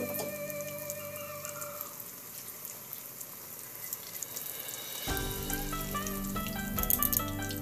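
Cakwe (fried dough sticks) sizzling and crackling in hot oil. Background music plays over it for the first couple of seconds and comes back with a melody at about five seconds in.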